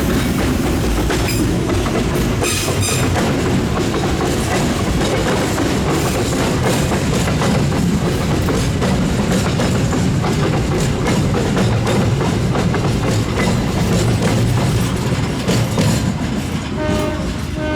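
A long train rolling past, a steady rumble with rapid clicking of wheels over rail joints. Near the end the locomotive horn sounds in two short blasts.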